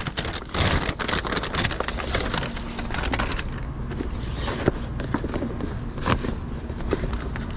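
Brown paper bag rustling and crinkling as it is handled and pushed into a bicycle pannier. About halfway through the rustling stops, leaving softer handling sounds with a few light clicks over a low rumble.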